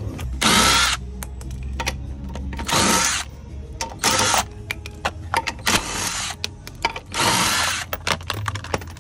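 Bauer cordless impact wrench running in five short bursts of about half a second each, spinning the lug nuts off a Honda Acty's wheel, with clicks and clatter between bursts.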